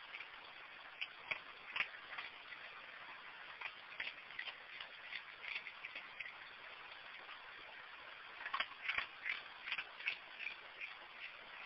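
A raccoon eating dry cat food from a dish: irregular crisp crunching and clicking of kibble, in bunches, busiest about nine seconds in, over a steady low hiss.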